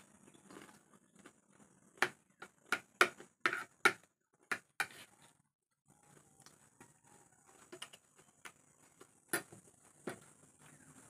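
Spoon clinking and scraping on a plate while eating rice: a quick run of sharp clicks in the first half, then a few scattered ones.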